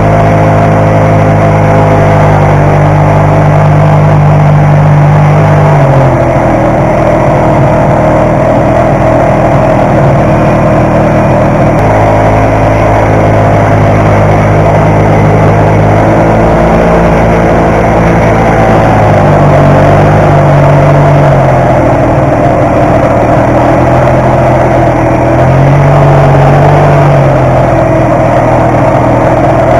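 1972 Ski-Doo TNT 440 snowmobile's two-stroke twin-cylinder engine running under way, loud and steady, its engine note shifting several times as the throttle changes.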